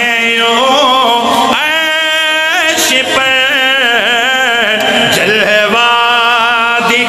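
A man chanting a slow devotional melody, holding long notes that waver and slide between pitches, with short breaks for breath.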